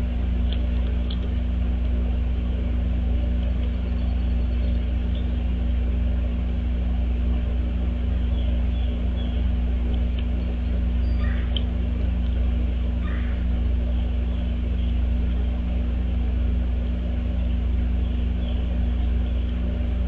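Steady low rumble with a constant hum underneath, and faint short chirps of small birds now and then.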